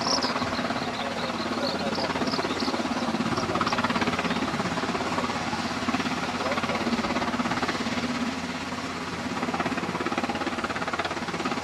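UH-60 Black Hawk helicopter hovering low: its main rotor beats in rapid, even pulses over the steady sound of its twin turboshaft engines.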